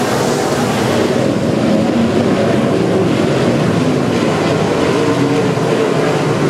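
Dirt modified race cars' V8 engines running at racing speed as the field goes by, a loud, steady din of engines and exhaust.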